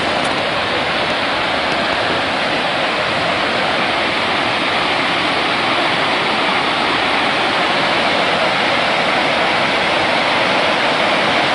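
Loud, steady rush of falling water, unbroken throughout.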